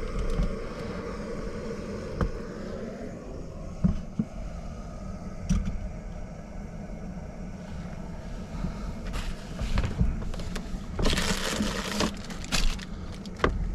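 Cooking handling at a camp stove: a few light knocks and scrapes of a utensil and pan, then a longer stretch of rustling about nine to twelve seconds in, over a steady low background.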